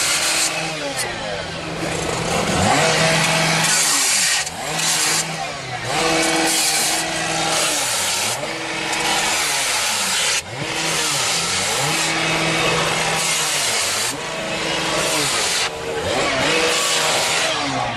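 Engine of a hydraulic rescue-tool (Jaws of Life) power unit running steadily. Its pitch dips and recovers again and again as the tools work, with metal crunching and scraping from the car body being cut and spread.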